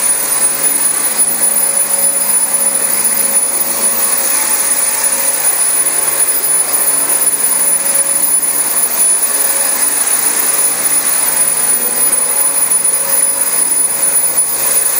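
Dyson DC25 upright vacuum cleaner running steadily over thick new carpet, a constant rushing noise with a high motor whine on top.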